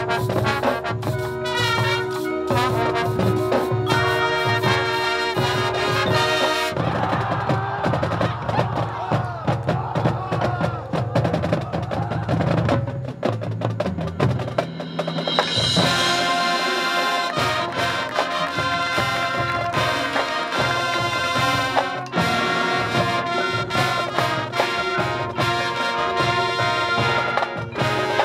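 High school marching band playing its field show: saxophones and brass over drumline bass drums and snares, with a steady low drum beat. About halfway through the brass come in fuller and brighter.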